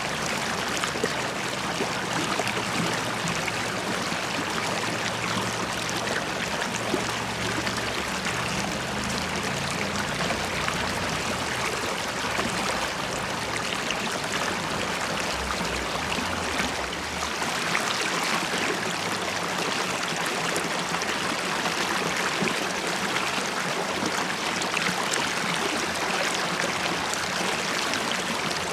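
River water flowing and bubbling over a steady stream of noise, with fine fizzing, trickling texture. A low rumble underneath dies away about two-thirds of the way through.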